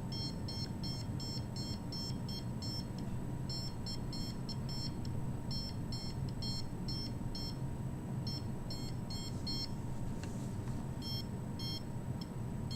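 Handheld microwave meter's alarm beeping: short high beeps, about three or four a second, with a few brief pauses. The alarm signals a high reading.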